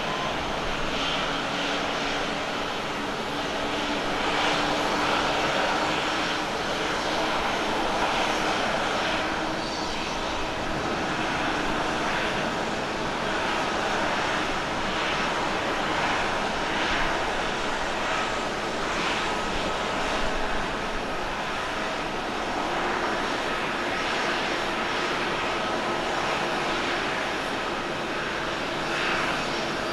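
Boeing 787 Dreamliner jet engines during touchdown and landing rollout: a steady rushing noise with faint humming tones through it.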